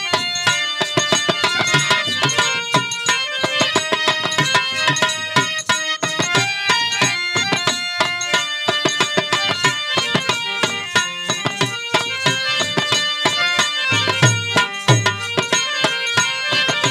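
Harmonium playing a melody in sustained reedy chords over a fast hand-drummed dholak beat, an instrumental passage of Bhojpuri birha folk music. A few deeper bass strokes on the drum come near the end.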